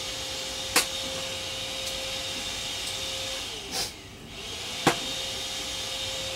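A small electric motor running with a steady whine and hiss. It winds down a little past three seconds in and starts up again about a second later. Two sharp clicks, about a second in and just before five seconds.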